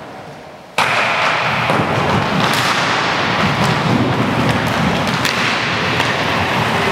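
Inline hockey play in an echoing sports hall: inline skate wheels rolling on the hardwood floor and scattered sharp clacks of sticks and puck. The sound cuts in suddenly about a second in.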